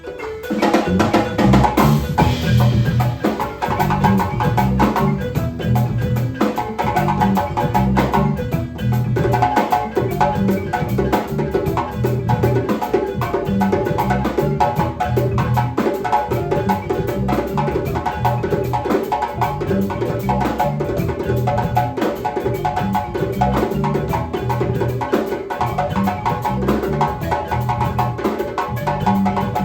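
Percussive dance music: a dense, steady stream of sharp woody clicks from dancers' footwork over a pitched bass line and a higher repeating melody.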